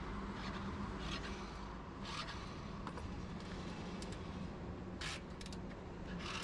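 A motorcycle engine idling steadily, with a few short scraping noises over it.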